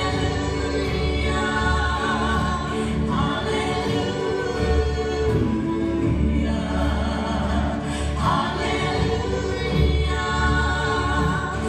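Women's gospel trio singing in close harmony with live band accompaniment of bass, piano and guitar, heard from the back of a church sanctuary.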